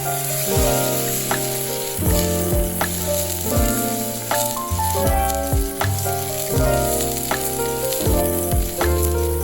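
Steak sizzling in an iron frying pan, heard under background music with bass notes and a beat.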